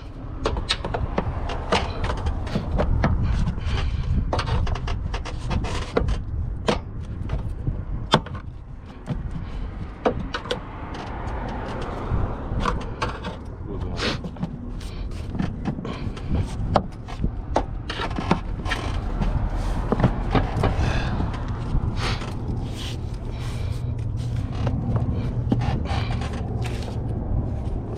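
Plastic headlight parts scraping, clicking and knocking as the assembly is worked into place past a protruding screw. Irregular sharp clicks come throughout, over a steady low rumble.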